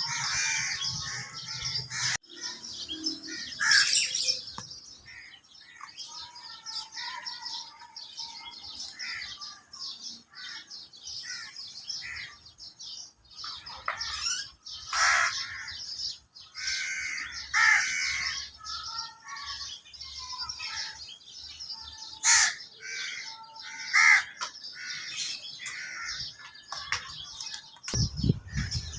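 Mynas and crows calling, many short calls overlapping and following one another, with a few louder sharp calls scattered through.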